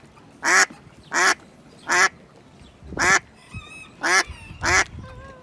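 Duck quacking: six short nasal quacks, roughly one every three-quarters of a second, with faint chirping of small birds in the background partway through.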